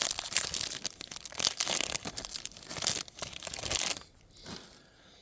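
Foil trading-card pack wrapper being torn open and crinkled, a dense crackling that stops about four seconds in.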